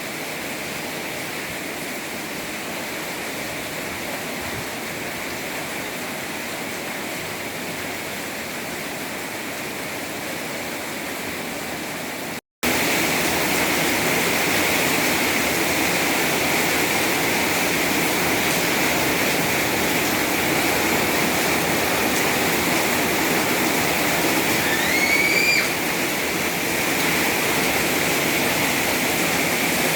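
Heavy storm rain pouring down as a steady rushing hiss, broken by a sudden cut about twelve seconds in and louder after it. About twenty-five seconds in, a short rising chirp sounds over the rain.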